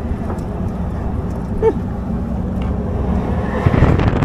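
An engine running steadily, with a rush of noise building louder toward the end.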